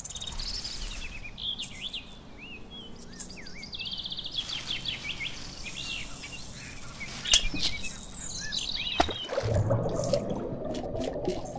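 Birds chirping, with many short rising and falling calls and a fast trill. About nine seconds in, the birdsong gives way to a lower, rougher sound, with a few sharp clicks.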